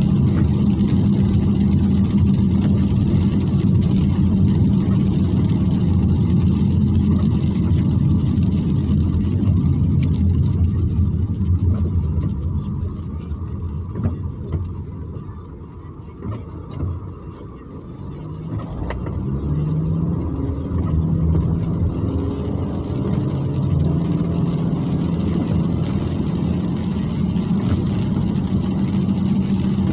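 Car cabin while driving on a wet road: steady engine rumble and tyre hiss, dropping to a quieter idle for several seconds around the middle as the car slows to a stop, then climbing in steps again as it pulls away and accelerates.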